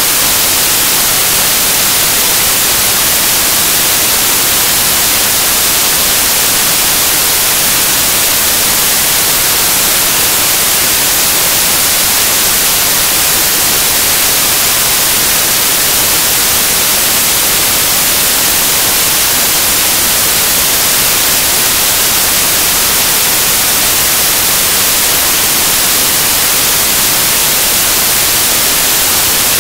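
Loud, steady static hiss like white noise, brightest in the treble, with no change from start to finish and no other sound over it.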